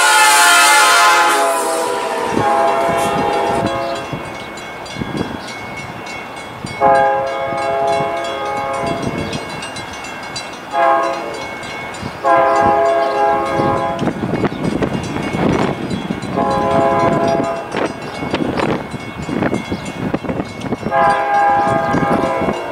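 Diesel locomotive's multi-chime air horn sounding a series of blasts, mostly long with one short, from a train approaching on the line. Under the later blasts the rumble of the oncoming train builds.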